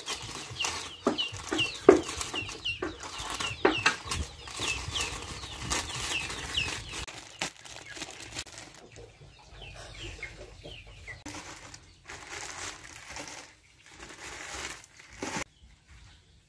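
Chickens clucking over and over in short chirping calls that thin out after about seven seconds, while plastic instant-noodle packets crinkle and tear open in sharp crackles, the loudest about two seconds in.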